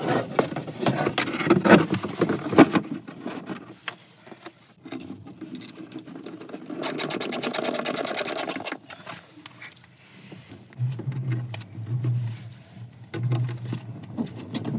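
A loose wall panel knocking and rattling as it is set in place. Then a cordless drill runs for a couple of seconds and again in short bursts near the end, driving screws to fasten the cover panel.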